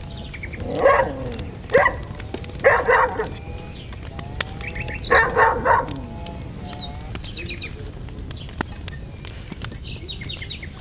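A dog barking: single short barks in the first three seconds, then three quick barks about five seconds in.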